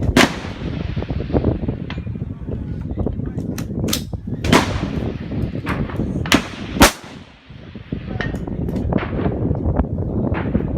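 Rifle shots on a firing line: a loud shot right at the start, then a cluster of loud shots between about four and seven seconds in, with fainter shots between them, each with a short echoing tail. A steady low rumble lies underneath.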